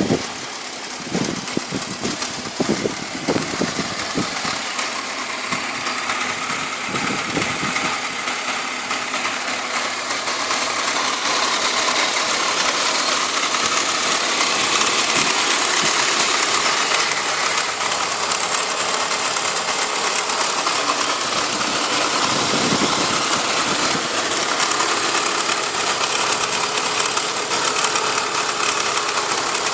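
BMW E46 330Ci's 3.0-litre straight-six engine idling with a strange ticking that the owner finds abnormal for an E46. A few dull thumps sound in the first few seconds.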